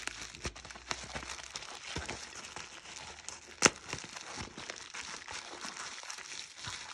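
Bubble wrap crinkling and rustling in the hands as masking tape is picked and peeled off it, with scattered crackles and one sharp snap a little past the middle.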